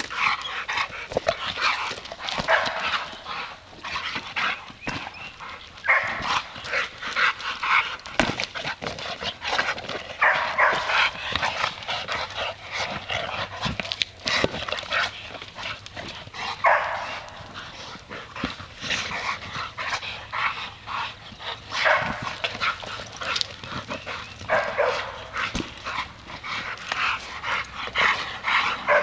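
Two bulldogs making excited dog noises in short bursts, again and again, as they leap and bite at a ball hanging from a tree. Sharp knocks and scuffs come in between.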